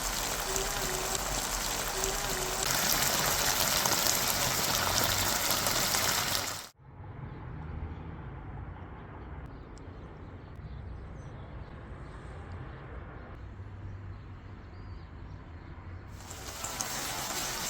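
Meatball stew cooking in its pot, a steady hiss like sizzling or bubbling. It cuts off abruptly about seven seconds in, leaving a quieter low rumble, and the hiss returns near the end.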